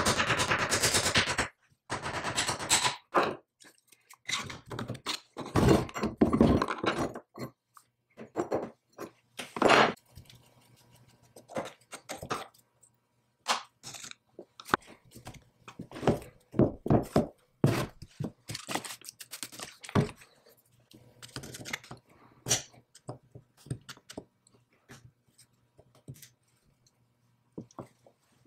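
Hand tools and metal parts of a cast-iron belt lacer knocking, clanking and scraping during disassembly on a wooden workbench: an irregular series of sharp knocks, with a few longer scrapes near the start and a few seconds in.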